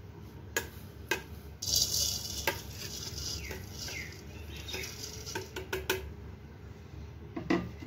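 A steel spoon clinking and scraping against a steel bowl while dry roasted oats are spooned out, with a rustling hiss of oats pouring into a plastic grinder jar about two seconds in.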